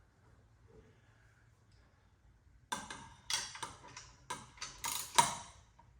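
Faint room tone, then about three seconds in a quick run of about eight sharp metallic clinks and knocks, each with a brief ring, as metal tools or exhaust parts are handled.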